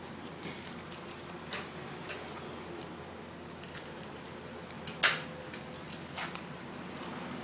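Silver foil wrapper of a Bowman baseball card pack crinkling and being torn open by hand, as scattered sharp crackles. The loudest crackle comes about five seconds in, and a smaller one about a second later.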